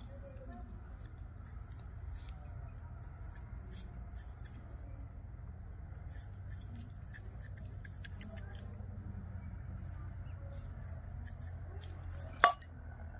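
Small scratching clicks of a thin rod working inside a rolled paper tube, as it is packed by hand, over a low steady rumble. A sharp, much louder click comes near the end, with a smaller one right after it.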